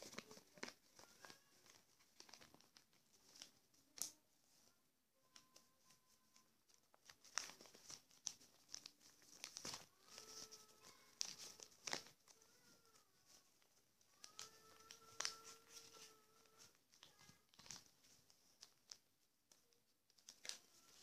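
A sheet of paper being folded and creased by hand into a paper boat: soft rustling with scattered sharp crinkles.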